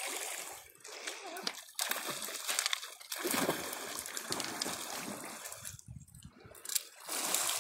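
Water splashing and sloshing as a dog wades and swims out into the lake, with small waves washing over a pebble shore.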